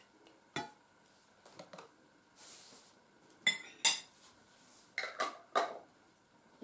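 Tableware clinking: a spoon, a glass jar and dishes knocking together in a handful of short, sharp clinks, the loudest pair about halfway through.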